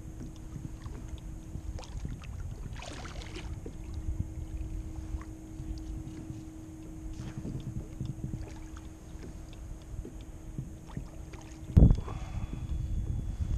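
Water lapping against a kayak hull, with low wind rumble on the microphone and a faint steady hum. A single sharp knock on the hull about twelve seconds in is the loudest sound.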